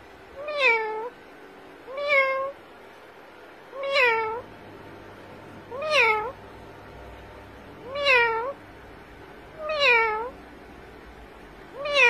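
Yellow (lutino) Indian ringneck parakeet mimicking a cat's meow. It gives seven meows, one about every two seconds, each rising and then falling in pitch.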